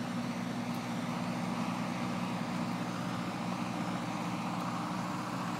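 An engine idling steadily, a low even hum with a few held tones and no change in speed.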